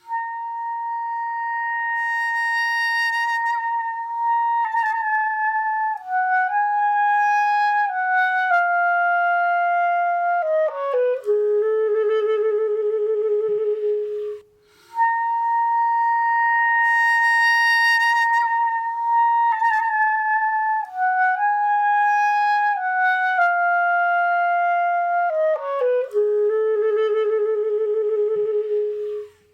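A solo instrumental melody: one instrument plays a slow phrase of long held notes stepping downward and ending on a low, wavering note, then plays the same phrase again.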